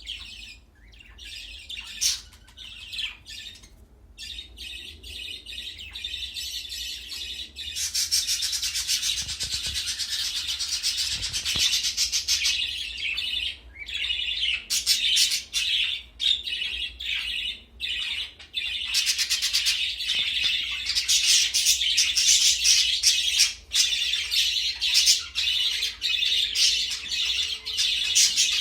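Budgies chirping and chattering in rapid high twitters. The chirps are scattered for the first several seconds, then build into dense, near-continuous chatter with short breaks.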